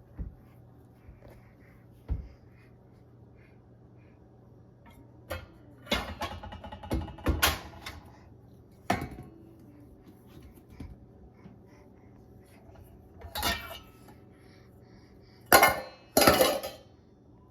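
Metal pots, pans and utensils clattering and clanking as a small child handles them. The clatters come in scattered bursts, with the two loudest near the end.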